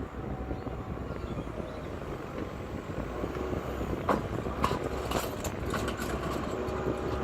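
Diesel engine of paving machinery running steadily, with a run of sharp clacks starting about four seconds in.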